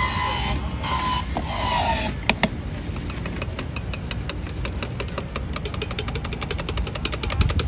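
Electric juicer running with green stalks being pushed through it: a steady motor rumble, joined after a couple of seconds by a fast rattling ticking that gets quicker toward the end.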